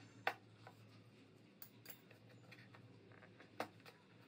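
A few faint clicks and taps as a pointed tool is pushed into a thin cardboard toothpaste box to make a hole; the clearest come shortly after the start and about three and a half seconds in.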